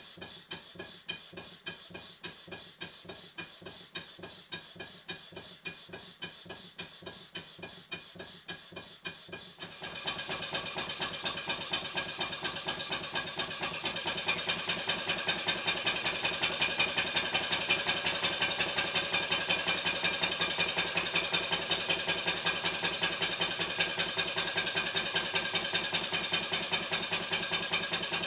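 Stuart 5A single-cylinder steam engine running on compressed air, its exhaust chuffing in a steady even rhythm with the clatter of its valve gear and crank. About ten seconds in it turns louder and quicker, with more air hiss in each beat.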